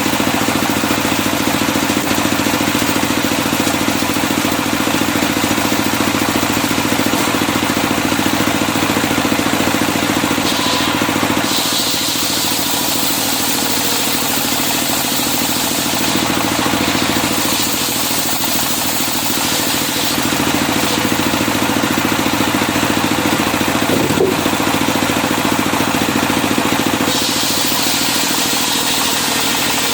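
Circular-saw sawmill running steadily, its engine droning under a loud hiss from the saw. The hiss shifts about 11 seconds in and again near the end.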